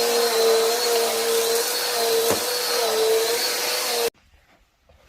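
Vacuum cleaner running steadily on carpet, a loud motor whine with a high whistle above it. It cuts off suddenly about four seconds in.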